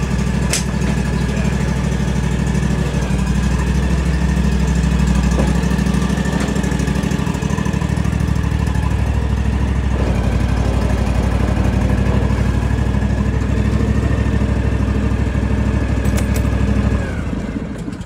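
John Deere X370 lawn tractor engine running steadily as the tractor mows, then shut off near the end, the sound dying away within about a second.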